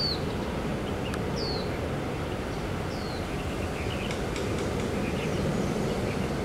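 Boeing 747's jet engines droning steadily on approach, heard from a distance as an even low rumble. A bird gives a short falling chirp three times: at the start, about a second and a half in, and about three seconds in.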